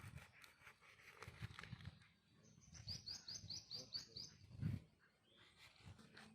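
A bird calling a quick run of about eight short high notes, evenly spaced, in the middle, over faint rustling and small knocks. A dull low thump just after the calls is the loudest sound.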